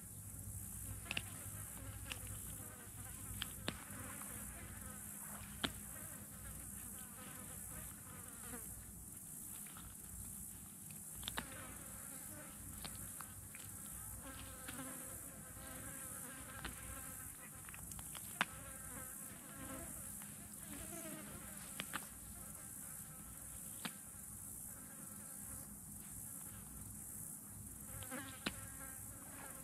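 Flies buzzing around dead fish, the drone wavering and coming and going as they pass close by, over a steady high insect hiss. About ten sharp clicks are scattered through.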